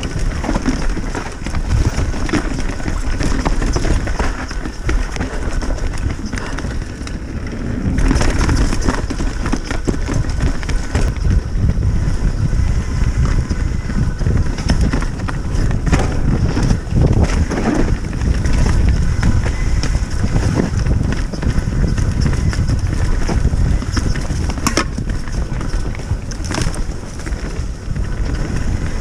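Mountain bike riding down a trail: wind rumbling heavily on the microphone over the rattle and clatter of the bike and tyres, with many short knocks throughout.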